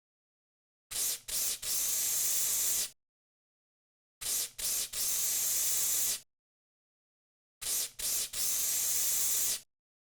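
Narrow-nozzle cockroach insecticide aerosol spraying, three times over: each time two short puffs, then a steady spray of just over a second, with silence between.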